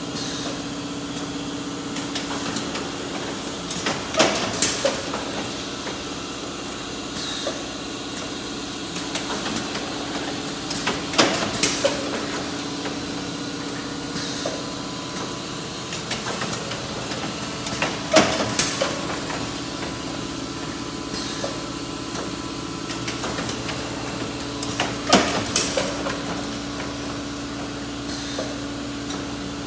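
Sencorp packaging machine running through its cycle: a steady hum, broken about every seven seconds by a short burst of clacks and knocks from its mechanism, four times in all.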